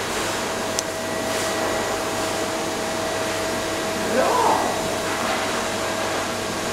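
Steady machine rush and hum with one constant tone, typical of pool pump or water-jet machinery in a hydrotherapy pool. A brief voice-like sound comes about four seconds in.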